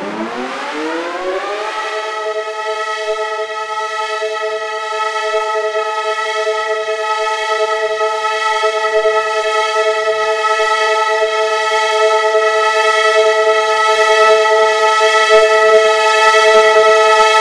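Synthesized Federal Signal 2001 dual-tone civil defense siren (8/12 port) winding up: its pitch rises to a steady two-note chord about two seconds in, then holds there, slowly growing louder.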